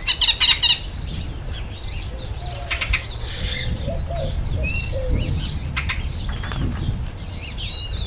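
Great-tailed grackle calls: a quick run of four loud, sharp clacks at the start, further rattling clack series about three and six seconds in, short whistled notes between, and a wavering whistle near the end. A steady low rumble lies underneath.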